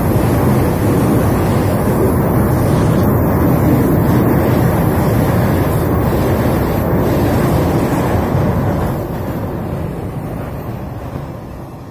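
Freight train running past across a steel truss railway bridge: a loud, steady rumble of wagons on the rails that fades from about nine seconds in as the train moves away.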